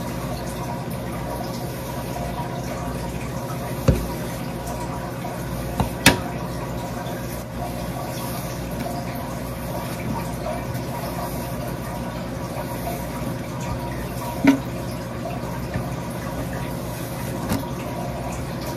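Steady running water from a tap into a basin, with a few short clicks or knocks scattered through it.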